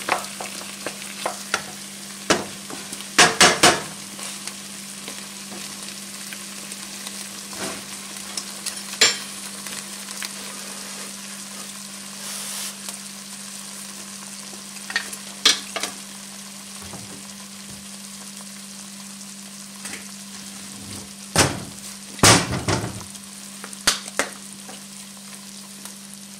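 Slotted wooden spatula stirring and scraping thick mashed potatoes in a nonstick pot, heard as short spells of knocks and scrapes against the pot with quieter stretches between them. A steady low hum runs underneath.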